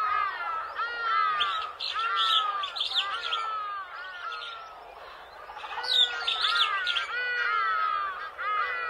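Many birds chirping at once: a dense stream of overlapping short chirps that eases off around the middle and then picks up again.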